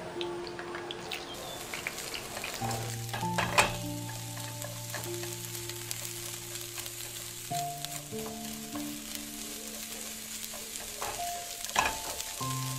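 Diced onions sizzling in hot oil in a stainless steel pan, a steady hiss that starts about a second in, with a couple of sharp knocks of the spatula against the pan as they are stirred.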